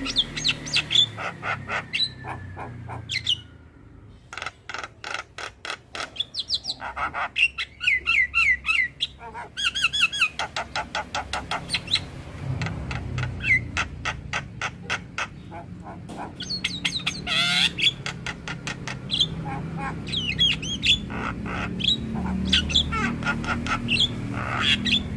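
A Javan myna (jalak kebo) sings a long, varied song. Fast runs of clicking chatter, about seven clicks a second, mix with short whistled glides and harsh squawks, with a brief pause a few seconds in.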